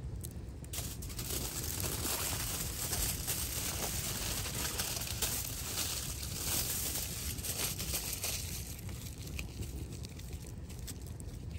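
Aluminium foil crinkling and rustling as a hand handles a sheet of it. The crinkling starts about a second in and dies down near the end.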